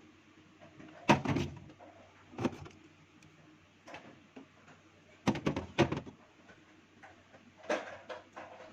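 Items being set down in a refrigerator during restocking: a series of separate knocks and clunks, loudest about a second in and twice between five and six seconds in.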